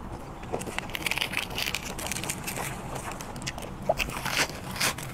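Close-miked biting and crunchy chewing of a fresh lettuce leaf, with the leaf rustling as it is grabbed and sharp crunches at the bites.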